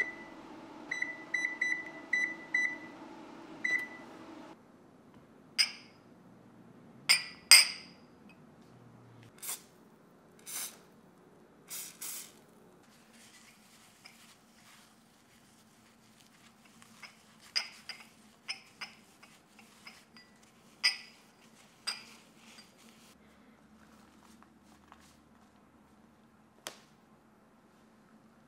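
Whirlpool oven's control panel beeping as its buttons are pressed, a quick run of short beeps over a low hum that stops about four seconds in. Then glass ramekins clink and knock against each other and the counter, loudest about seven seconds in, followed by the soft rub of a paper towel greasing them and a few light taps.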